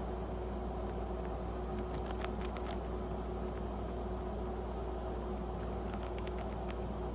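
Pet rat crunching a cracker: two short runs of quick, crisp clicks, about two seconds in and again near the end, over a steady background hum.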